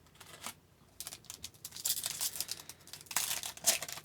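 Hockey card pack wrapper crinkling and tearing open, a dense crackle of many small clicks that starts about a second in.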